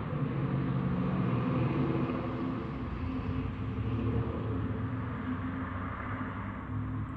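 Steady low rumble of city background noise, with a faint mechanical hum in it and no distinct single event.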